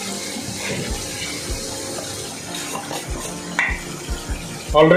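Onion-tomato masala cooking in oil in a pot, a steady sizzling and bubbling hiss with occasional small pops.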